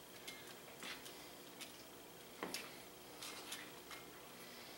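Faint, scattered clicks and taps of kitchen tongs in a bowl as sauced chicken wings are turned over.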